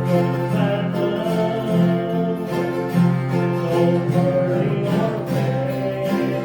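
Acoustic guitar playing, with a voice singing over it: live gospel music.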